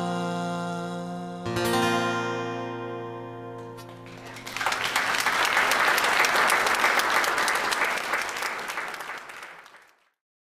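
Acoustic guitar's final chord ringing out, restruck once about a second and a half in and left to fade. Audience applause begins about four and a half seconds in and fades away near the end.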